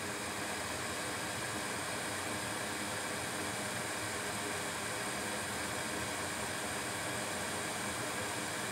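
Steady, unchanging hiss of background noise with faint steady hum tones underneath, and no distinct events.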